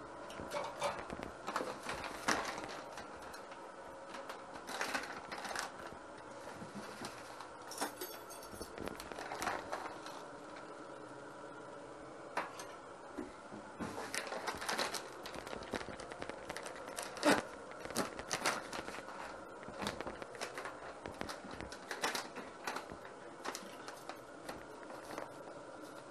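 Kitchen clatter of cooking prep: irregular clicks, taps and light scrapes of utensils and dishes, some in quick clusters, over a steady appliance hum.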